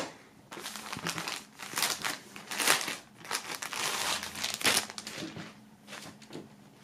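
Thin clear plastic bag crinkling and rustling in irregular bursts as a folded jersey is slid out of it, after a single knock at the very start. The crinkling dies down over the last second or two.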